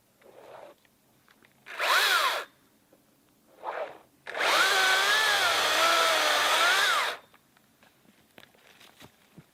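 Makita XCU04 36V brushless cordless chainsaw, run in trigger pulls: a short burst about two seconds in, a brief blip, then a run of nearly three seconds whose motor pitch dips and recovers as it loads in the cut, and which cuts off suddenly.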